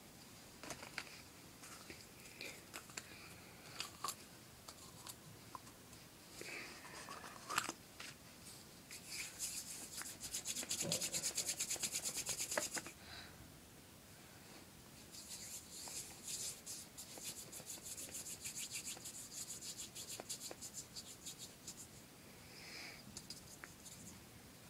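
Hands rubbing quickly back and forth, rolling a piece of modelling clay between the palms, in two spells of fast, even strokes. Light clicks and handling noises come in between.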